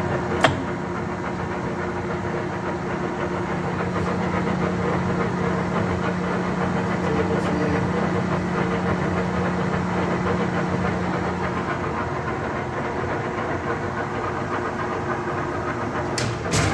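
Standard Modern 2040 engine lathe running with its 20 hp three-phase motor, a steady gear hum with the power table feed engaged. Sharp clicks from the apron levers come about half a second in and twice near the end, and one of the steady tones drops out about twelve seconds in.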